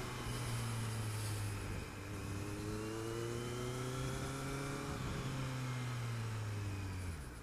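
Kawasaki Z900's inline-four engine pulling at low road speed with wind rush over the bike. The engine note dips briefly about two seconds in, climbs slowly again, then falls and cuts off near the end.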